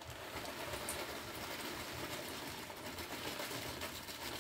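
Gas stove burner running with a steady hiss over a fluttering low rumble.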